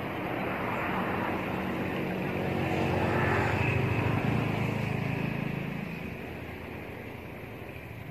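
Engine of a passing vehicle, growing louder to a peak about four seconds in and then fading away.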